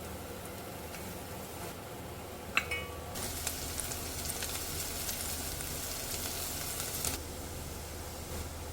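Food frying in a hot pan, a dense crackling sizzle that starts about three seconds in, just after a sharp metal clink, and stops abruptly about seven seconds in.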